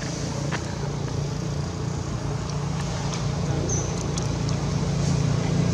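A motor vehicle engine running steadily, getting louder toward the end, with a few faint clicks.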